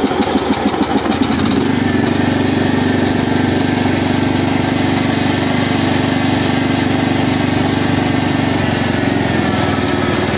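A riding lawn mower's 340 cc overhead-valve 11.5 hp engine, just started on the choke, runs unevenly for the first second or so and then settles into a steady run.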